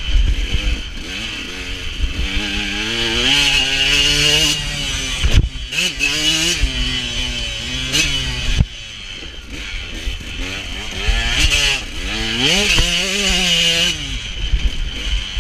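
KTM motocross bike engine revving up and dropping again and again as the throttle is opened and shut, with a quieter off-throttle stretch a little past halfway. A few sharp knocks from bumps and a low wind rumble on the microphone come through too.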